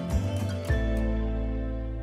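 Background music with a steady beat that stops about two-thirds of a second in, leaving a low held chord ringing and slowly fading.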